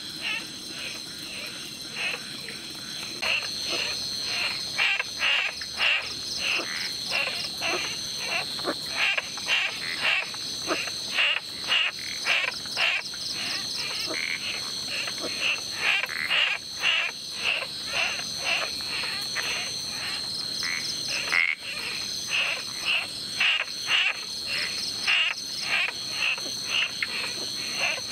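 Rainforest animal chorus: short repeated calls, about two a second and overlapping, over a steady high-pitched insect drone.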